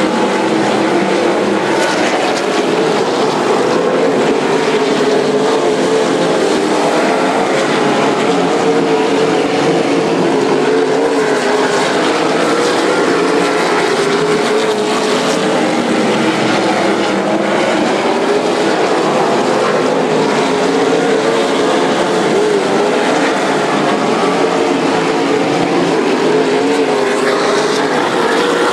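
A field of late model stock cars racing around the oval, their V8 engines a loud, continuous drone whose pitch wavers slightly as the cars circle the track.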